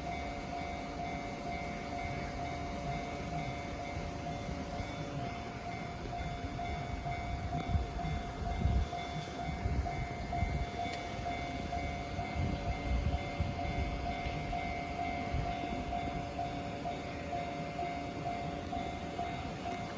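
Japanese level-crossing warning bell ringing over and over in a steady pattern, the signal that a train is approaching. A low rumble swells in the middle.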